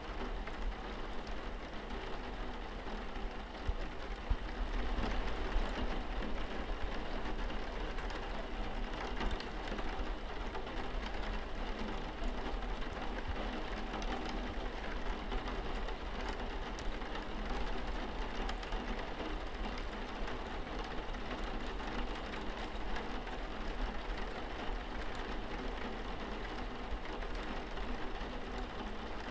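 Steady rain falling on window glass over a low, even hum.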